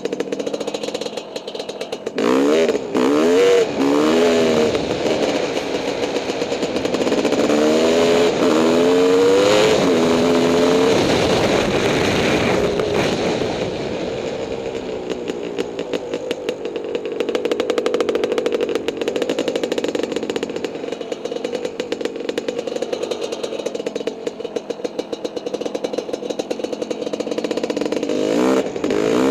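Honda CR500 two-stroke single-cylinder dirt bike engine revving hard through the gears, its pitch climbing and dropping with each shift, then holding steady at speed before revving up again near the end.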